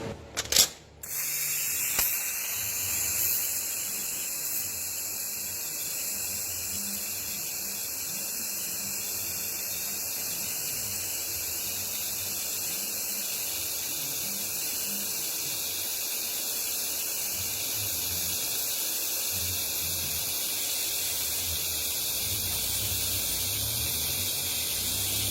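TIG welding arc struck with a sharp crackle about half a second in, then burning with a steady hiss.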